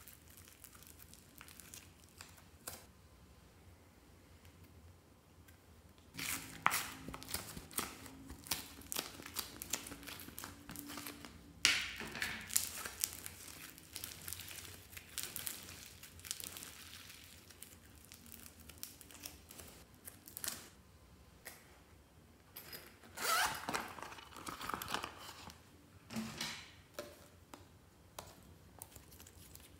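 Hands squeezing and stretching foam-bead slime, making irregular crackling and crinkling pops with short tearing pulls. It starts about six seconds in and is loudest near the middle and again a few seconds before the end.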